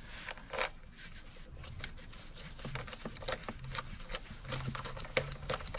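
Faint rubbing and small irregular clicks as a gloved hand threads a 10 mm screw back in by hand beside the air filter box.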